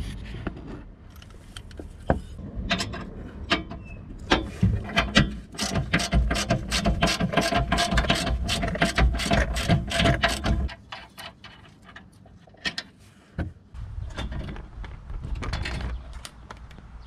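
Ratchet wrench clicking in quick runs, undoing the bolts that hold a bull bar to a van's frame, then a couple of separate knocks.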